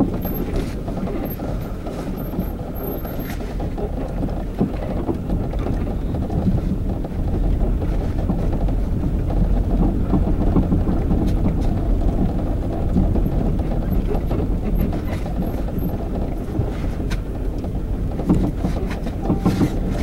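Car driving, heard from inside the cabin: steady engine and road rumble, with a few short knocks in the last few seconds.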